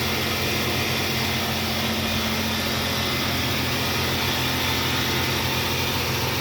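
2004 Nissan Xterra engine running steadily at raised revs with a constant drone.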